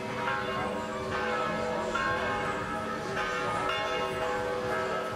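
Orthodox church bells ringing, several bells struck about once a second, their tones ringing on and overlapping.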